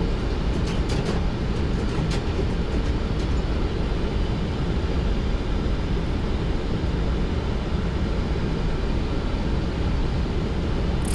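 Steady flight-deck noise of a Boeing 737-800 in flight on approach: a constant rush of airflow and engine noise as heard inside the cockpit. A few faint clicks come about one and two seconds in.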